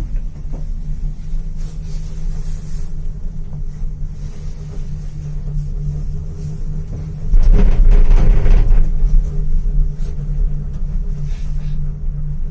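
Steady low hum and rumble inside a moving gondola cabin, with a louder, rougher rumble for about a second and a half near the middle.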